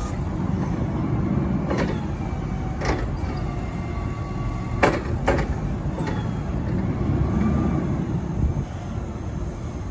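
Cat GP45N1 forklift running with a steady low rumble, joined by a faint whine that rises and falls. Four sharp knocks cut through the rumble, two of them close together near the middle.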